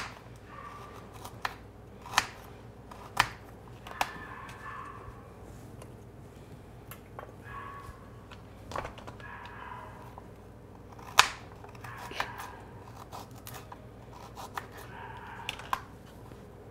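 Food-prep handling at a countertop: scattered sharp clicks and taps of small pieces of chopped carrot, pepper and apple being picked from plastic containers and dropped into stainless steel bowls, with soft rustling between them. The loudest click comes about eleven seconds in.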